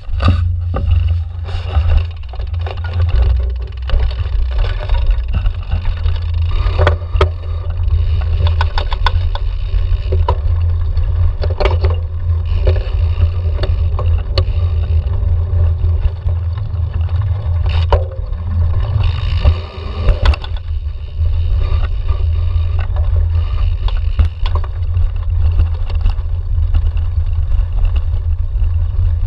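Cyclocross bike ridden over sand, brick paving and grass, heard from a handlebar-mounted camera: a heavy steady rumble of wind and road vibration on the microphone, with frequent rattles and knocks from the bumps and tyre noise over the ground.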